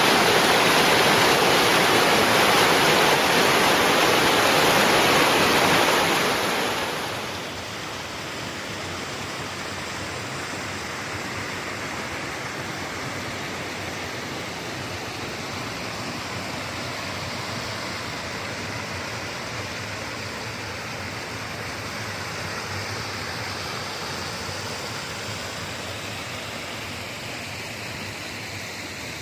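Running water rushing steadily; about seven seconds in it gets noticeably quieter and softer, then continues as a gentler flow.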